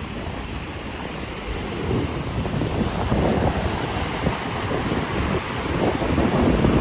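Ocean surf washing onto the beach, with wind buffeting the microphone; the surf grows louder toward the end.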